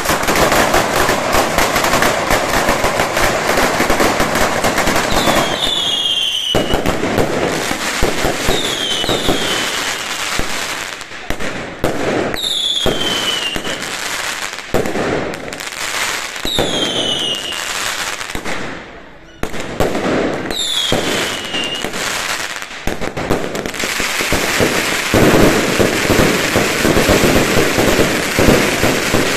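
Mascletà firecracker barrage: a dense, unbroken rattle of bangs that starts abruptly. Whistling rockets give five falling whistles through the middle, and the banging grows heavier and louder near the end.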